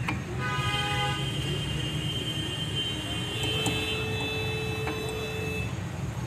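A vehicle's steady low rumble, with long, high, held tones over it, once briefly about half a second in and again for nearly three seconds from about three seconds in.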